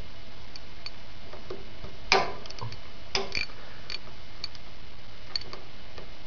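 Irregular metallic clicks and taps of a hand tool tightening the nut on a lawn tractor starter's wire lug, with a louder clank about two seconds in and two more just after three seconds.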